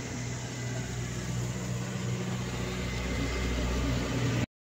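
Gas stove burner and noodles boiling in a steel wok, a steady low hum with an even hiss; it cuts off suddenly near the end.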